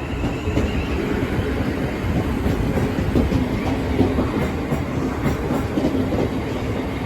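Electric multiple-unit passenger train running through the station, wheels clattering over the rail joints over a steady rumble.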